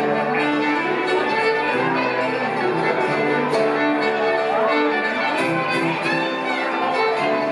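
Acoustic bluegrass band playing an instrumental passage, with the bowed fiddle out front over banjo, guitar and dobro.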